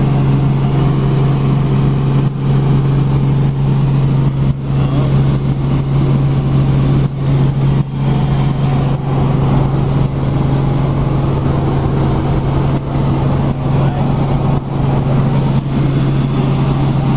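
Helicopter running steadily: a loud, even drone with a strong low hum that holds a constant pitch.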